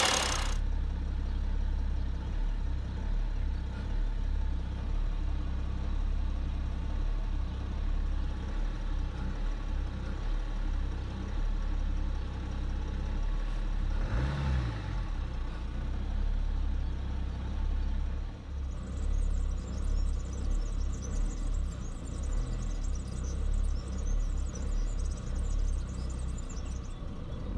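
BMW E60 530d's three-litre inline-six diesel idling roughly, its low drone pulsing unevenly, with a brief rise and fall in engine speed about halfway through, and cutting off at the very end as the engine dies. These are symptoms of a failing EGR valve.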